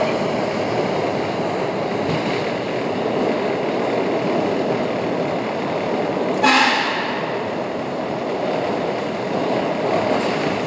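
PATCO Speedline rapid-transit train running steadily on the rails. About six and a half seconds in comes one short horn toot.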